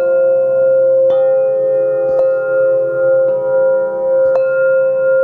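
A quartz crystal singing bowl ringing with one strong sustained tone and its overtones, with a light tap about once a second.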